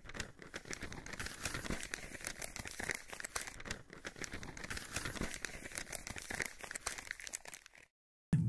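Paper crinkling and rustling, a sound effect for a parchment scroll being rolled up and unrolled: dense, continuous crackling that stops abruptly near the end.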